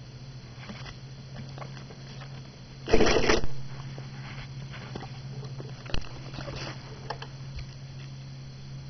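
A cat shifting its body on a desk right against the microphone: a short, loud rustle of fur about three seconds in, a single sharp click about six seconds in, faint scattered ticks, and a low steady hum underneath.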